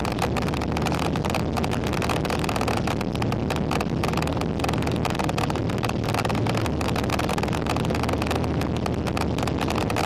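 A vessel's engine running at a steady drone, with wind buffeting the microphone in frequent gusts.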